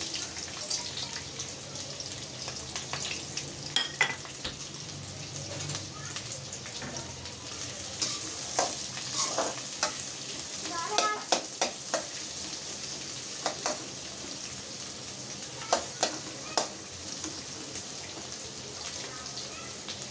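Chopped onions sizzling gently in a little hot oil in a stainless steel kadhai, softening without browning. A metal spoon stirs them, giving sharp scrapes and clinks against the pan at irregular intervals, most of them in the middle of the stretch.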